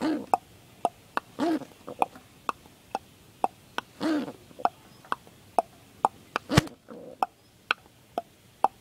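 White domestic pigeon on its nest giving three short grunting calls that rise and fall in pitch, among sharp clicks at about two a second. The grunts are typical of a nest-sitting pigeon reacting to a hand coming close. A louder knock sounds about two-thirds of the way through.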